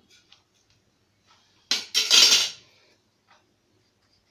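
Metal spoon scraping through grated dry coconut and poppy seeds being dry-roasted in a steel kadai: a short scrape about two seconds in, then a longer, louder one, with a few light clicks of metal on metal around them.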